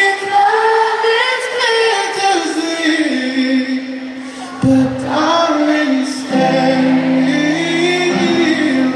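Live pop ballad in a large arena: a singer and choir-style backing vocals hold long sung notes. Low sustained instrument notes join about six seconds in.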